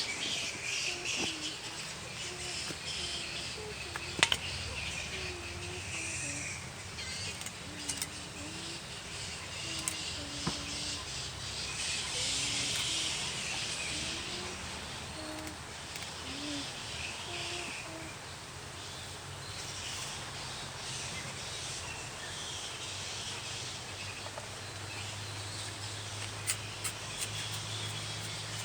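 Rural garden ambience of birds chirping and insects, broken by a few sharp knocks, the loudest about four seconds in.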